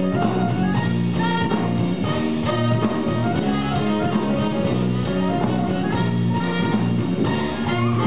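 Live band playing an instrumental passage, with clarinet, guitar and drum kit.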